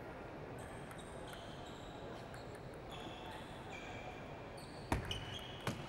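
Table tennis ball struck twice near the end, two sharp clicks about a second apart as a serve is played. Before that there is only the faint background of a sports hall, with a few short high squeaks.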